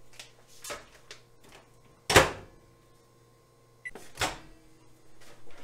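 A microwave oven door shuts with a sharp knock about two seconds in. Near four seconds a single short keypad beep is followed by another click as the oven is set to heat.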